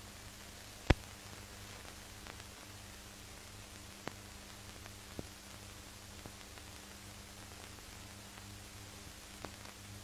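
Steady hiss and low hum of an old film soundtrack with no speech, broken by a sharp click about a second in and a few fainter clicks later.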